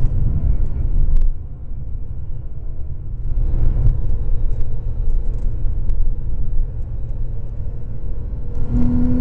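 Porsche 997.2 Carrera 4S flat-six engine and road noise heard from inside the cabin on track: a dense low rumble that eases about a second in and builds again from about three seconds on.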